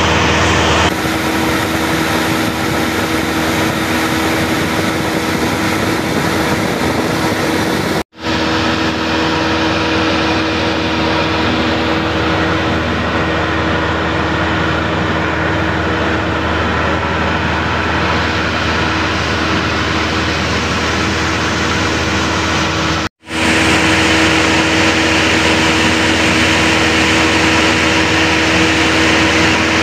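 Engine and propeller of a small single-engine propeller airplane running steadily in flight, heard from inside the cabin. The sound cuts out briefly twice, about eight and about twenty-three seconds in.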